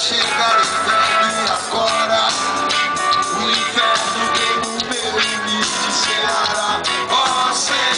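Rock band playing live through a loud stage PA, held notes over a steady drum beat.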